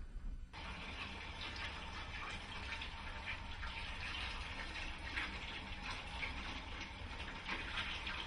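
A steady rushing hiss that starts abruptly about half a second in, over a low rumble.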